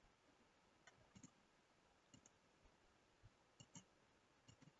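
Faint computer mouse clicks, about seven scattered short clicks, some in quick pairs, over near silence.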